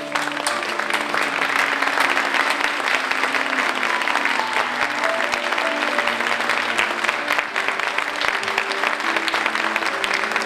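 Audience applauding steadily, with piano music playing underneath.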